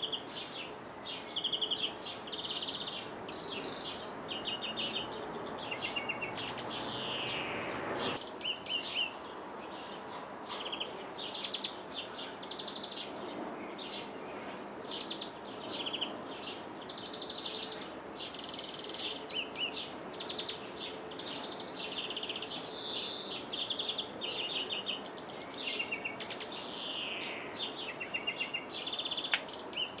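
European greenfinch singing: a near-continuous run of twittering trills and buzzy notes, with a long downward-sliding note about seven seconds in and again near the end, over a steady outdoor hiss.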